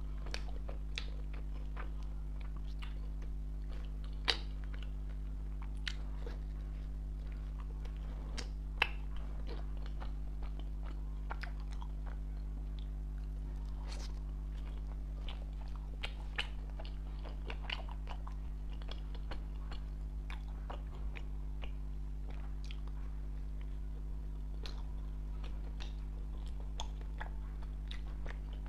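Biting and chewing a soft filled bread bun: small mouth clicks scattered throughout, with two sharper clicks about four and nine seconds in, over a steady low hum.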